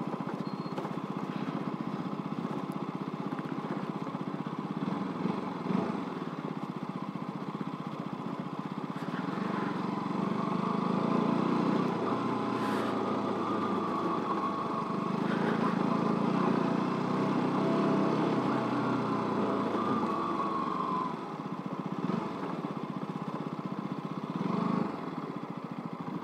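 KTM RC 200's single-cylinder engine running as the motorcycle is ridden at low speed. The revs pick up about ten seconds in and again around fifteen seconds, then ease off about twenty seconds in.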